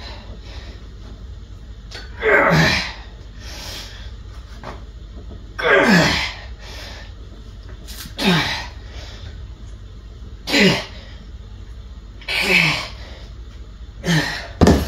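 A man's forceful exhaled grunts, one with each rep of a kneeling rope cable pushdown, about six in all, two to four seconds apart. Each falls in pitch from a high breathy start to a low voiced end.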